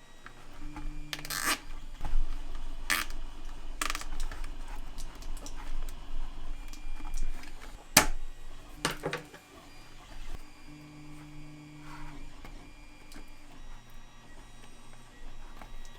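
Small motor in a resin 3D printer humming steadily in two short runs, like a stepper moving, with several sharp clicks and knocks in between.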